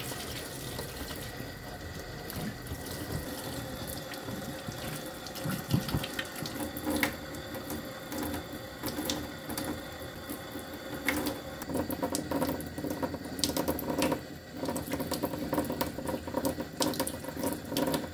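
Tap water running into a stainless steel sink while a makeup sponge is squeezed and rinsed under the stream. The splashing turns busier and more irregular in the second half.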